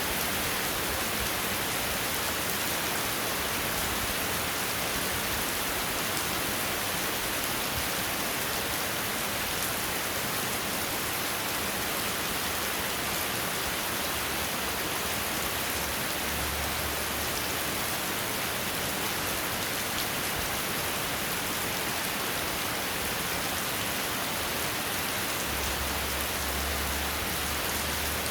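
Steady rain falling, an even hiss with no let-up. A faint low hum comes in for a couple of seconds in the middle and again near the end.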